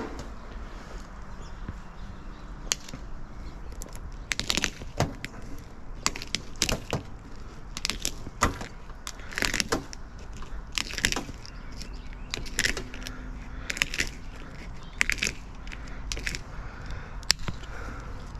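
Garden shears snipping through the tough scales down the top of a longnose gar's back: a run of irregular sharp cracking snips.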